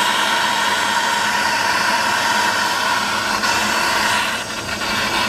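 Handheld MAPP gas torch flame hissing steadily while it keeps the silver in the crucible molten during the pour, dipping briefly a little after four seconds.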